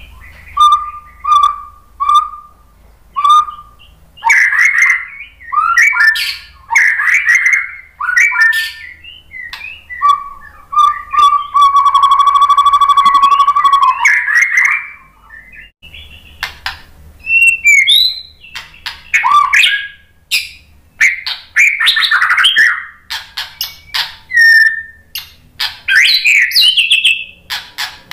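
White-rumped shama singing: a long run of loud, varied whistled phrases and chirps, with one note held steady for about three seconds midway.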